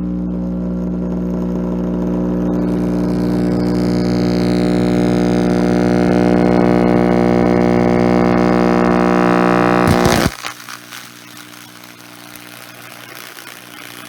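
Cheap loudspeaker giving out a loud, steady buzzing hum with many overtones that slowly grows louder. About ten seconds in it cuts off suddenly, leaving a fainter crackling noise.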